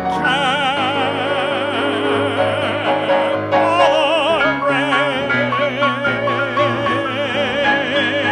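A male cabaret singer holding long, drawn-out notes with a wide vibrato over live accompaniment, the pitch shifting a couple of times about halfway through.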